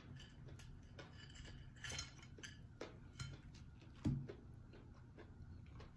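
Metal fork clicking and knocking against a plate while spearing banana fritters: a few light clicks, then one sharper knock just after four seconds in.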